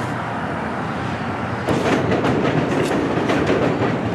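A train passing, its wheels clattering over the rails, growing louder about two seconds in.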